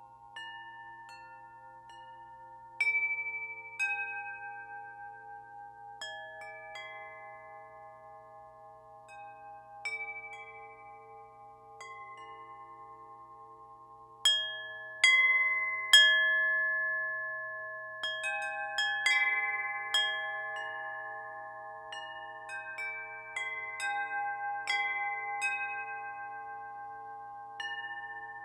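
Wind chimes ringing, struck at irregular moments by the breeze, each clear note ringing on and overlapping the others. Single strikes come a few seconds apart at first, then a busier run of strikes from about halfway through.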